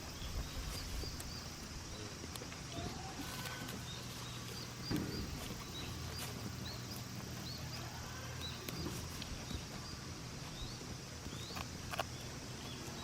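Goats grazing outdoors: soft hoof steps and rustling, with many short high chirps repeating irregularly and a low steady hum underneath.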